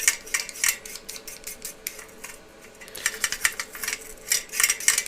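Bristles of an Oral-B iO brush head scrubbing over hard parts around a screw, in quick scratchy strokes that pause briefly midway, over a faint steady hum.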